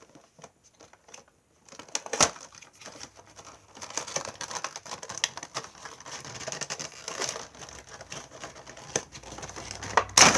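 Funko Pop box packaging being worked open by hand: cardboard and plastic crinkling and rustling with scattered clicks, starting about two seconds in after a sharp snap, and a loud snap near the end.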